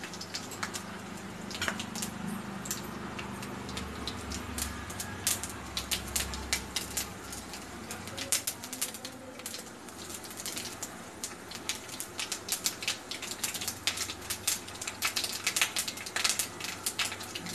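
Mustard seeds spluttering in hot oil in an iron kadai with dried red chillies: a scatter of sharp pops and crackles that grows busier near the end, the sign that the oil is hot enough for the tempering.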